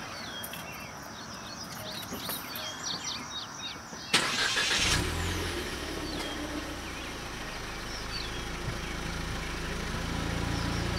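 Ford Fiesta's four-cylinder engine cranks and starts about four seconds in, then idles steadily. Birds chirp faintly before it starts.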